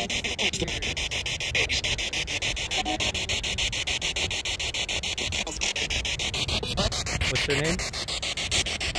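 Spirit box scanning the radio band: hissing static chopped into rapid, even clicks several times a second as it jumps from station to station, with snatches of broadcast voices. About seven seconds in, a whistle rises and then another falls.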